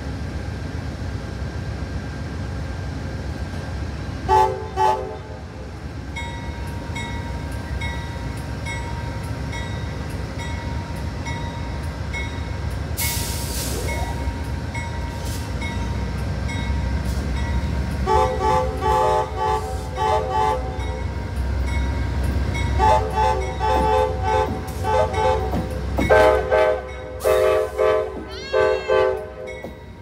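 Amtrak GE Genesis diesel locomotive pulling in. Its horn gives one short blast about four seconds in, then, from about eighteen seconds on, many quick toots in a row, over the rumble of the diesel engine and the train rolling in.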